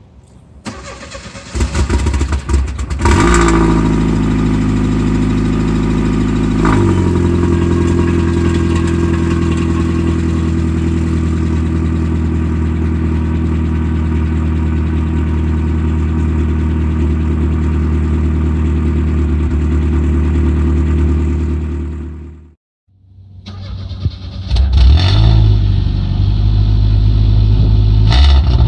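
1991 Oldsmobile Cutlass Calais Quad 442's 2.3-litre Quad 4 four-cylinder, breathing through a new MagnaFlow high-flow catalytic converter and Walker muffler, starting up about two seconds in. It flares up, settles to a fast idle, and drops to a lower idle a few seconds later. Near the end the sound cuts out for a moment, then the engine is running again with two short revs.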